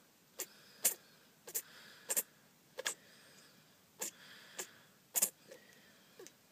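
A kitten's fit of short, sharp expulsions of breath, about ten in a row, many of them in pairs. The owner cannot tell whether they are sneezes or coughs and is worried by them.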